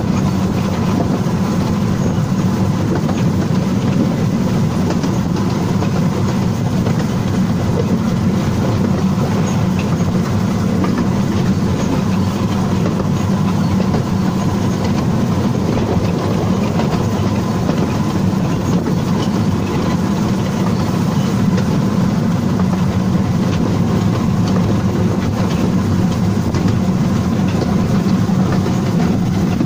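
Wulai's small narrow-gauge tourist trolley train running along its track, heard from inside the car: a steady rumble and rattle of wheels on rails, with a faint steady whine above it.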